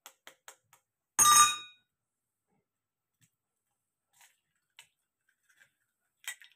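Four quick light taps of an egg being cracked on a beaker rim. About a second in comes one loud, ringing clink of glass, followed by a few faint clicks.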